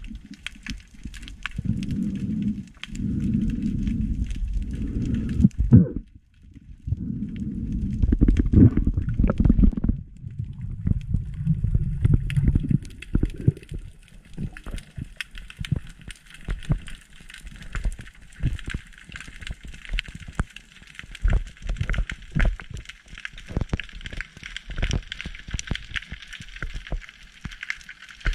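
Underwater sound picked up by an action camera in its housing while a diver swims. For about the first half, water rushes past in low swells; after that there is a dense crackle of sharp clicks.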